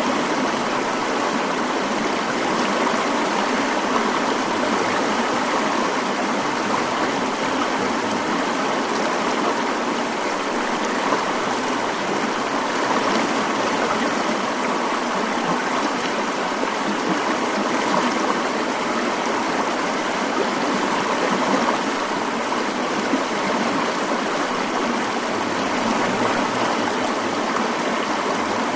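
Mountain stream running steadily: an even, unbroken rush of flowing water.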